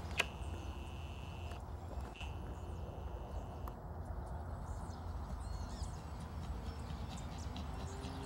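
Outdoor wind rumbling low and unevenly on the microphone. In the first four seconds it carries two long, high, steady tones, each about a second and a half long and each starting with a click.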